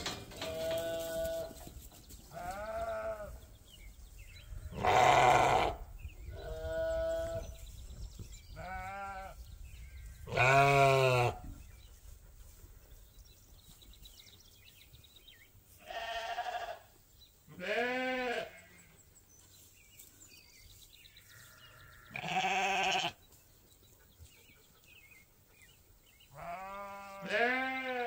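Sheep bleating repeatedly, about ten separate calls of differing pitch, some deep and some higher, with short gaps between them.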